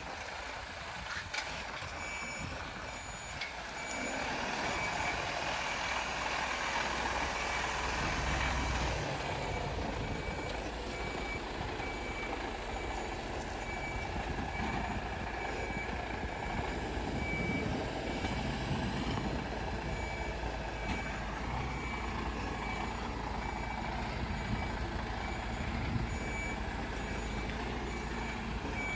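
A tractor-trailer truck reversing: its back-up alarm beeping steadily about once a second over the diesel engine running, which grows a little louder about four seconds in.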